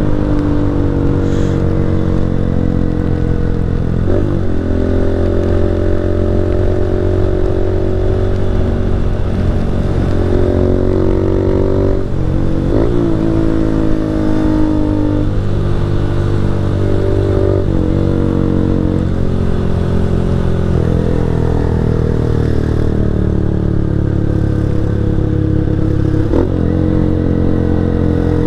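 A 160 cc single-cylinder motorcycle engine running while riding, its note sliding slowly lower and changing abruptly about four times as the throttle and gears change.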